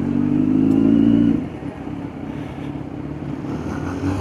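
Kawasaki Z900 inline-four motorcycle engine under way, revs climbing slightly for about a second and a half, then easing off the throttle and running quieter, with the revs picking up again near the end.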